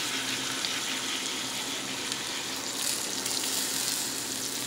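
Chicken strips, green pepper and onion sizzling in a hot steel skillet as about half a cup of water goes in. The sizzle is a steady hiss.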